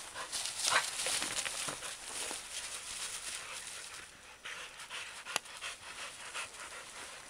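Entlebucher Mountain Dogs scuffling and trotting through dry fallen leaves, the leaves crackling and rustling in irregular bursts, with dog panting, and a single sharp click about five seconds in.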